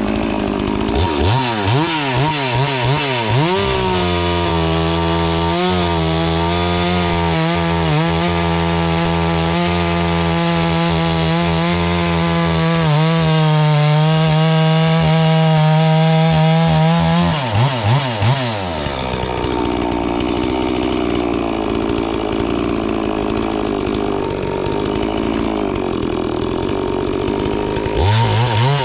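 FarmMac F380W 72cc two-stroke chainsaw revved in a few quick blips, then held at high revs for about thirteen seconds, its pitch wavering slightly. It drops back to idle about eighteen seconds in and gives another quick rev near the end.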